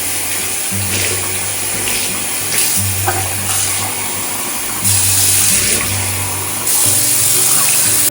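Water running hard from a tap, a steady rush that grows louder about five seconds in and again a couple of seconds later, over soft background music.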